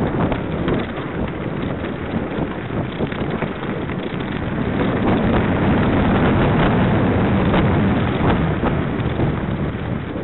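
Wind buffeting the microphone of a camera riding along on a mountain bike, with many small rattles and knocks as the bike rolls over a rough, leaf-covered forest trail. It grows louder a little past halfway.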